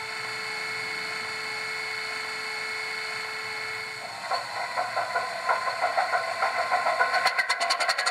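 Sound decoder in an OO gauge model of a BR Class 25 diesel playing its Sulzer engine start-up through the model's small speaker. A steady whine runs for about four seconds, then the engine fires with uneven beats that grow louder and quicker toward the end.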